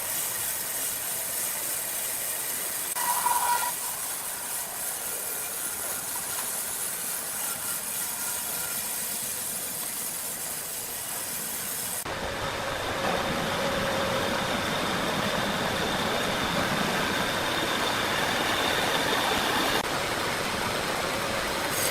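Machinery running steadily, with a brief high tone about three seconds in. About twelve seconds in the sound changes abruptly to a louder, fuller machine noise.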